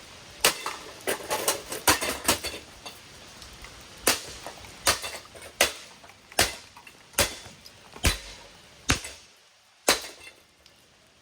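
Repeated hard blows smashing a brass ceiling fan's metal housing: a quick flurry of clanging hits, then single strikes about one every second, stopping near the end.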